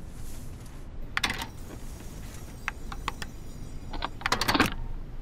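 Mechanical clicks and clunks of a vintage record changer being operated by hand, a 78 rpm record settling onto the turntable, with the loudest cluster of clunks about four seconds in, over a low steady background noise.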